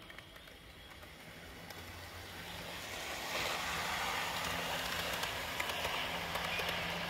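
Hornby OO gauge model steam locomotive and coaches running along the track, a steady rattle of small wheels on rail with small clicks, growing louder over the first three seconds or so as the train approaches and then staying loud as it passes close by.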